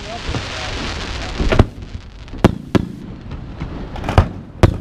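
Aerial fireworks display: a steady hiss for about the first second and a half, then five sharp shell bursts going off in quick succession, two of them close together near the end.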